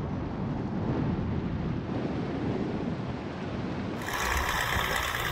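Wind rushing and buffeting over the microphone of a camera held out of a moving car's window, a dense low rumble. About four seconds in it turns suddenly brighter and hissier.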